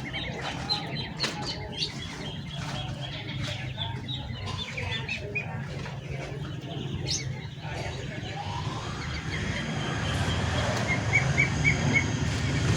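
Small caged songbirds chirping in quick short calls, with wing flutters and light clicks against the cage. In the last third a rushing noise rises and grows louder.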